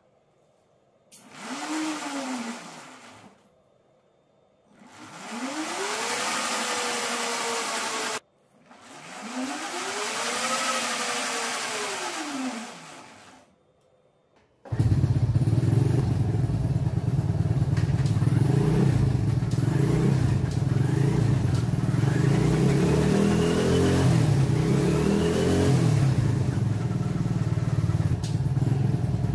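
A brushless electric hub motor in a motorcycle's rear wheel whines as it spins up and winds down, three times. About halfway through, a motorcycle engine comes in suddenly and runs steadily and loudly, with whines that rise and fall over it.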